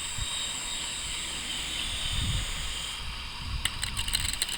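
Toy remote-control helicopter's small electric motor and rotor running with a steady high whine. From a few seconds in, a rapid run of clicks and rattles, the rotor blades striking the ground.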